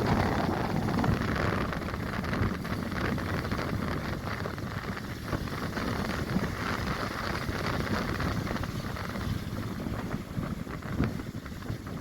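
Storm wind rumbling and gusting against the microphone over rough sea, a steady noise with small swells in loudness.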